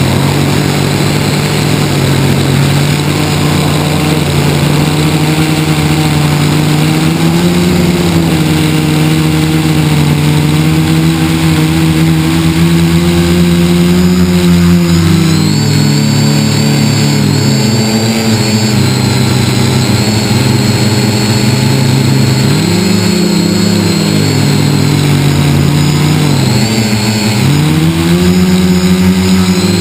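FPV model aircraft's electric motors and propellers running, heard through the onboard camera; the pitch rises and falls with the throttle, with several dips in the second half, over a faint high whine.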